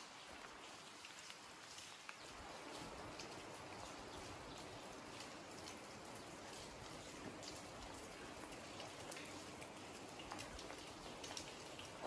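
Light rain falling: a soft, steady hiss with scattered drops ticking.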